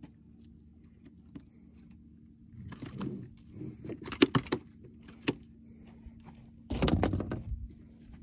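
Smallmouth bass flopping on a boat deck: irregular bursts of thumps and knocks, with a sharp knock about four seconds in and a longer burst of thumping near the end, over a steady low hum.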